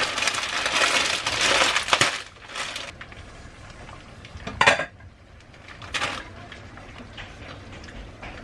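A plastic bag of dried pasta crinkling as it is handled for about two seconds, followed by a few sharp clinks of a pot lid and kitchenware, the loudest about halfway through.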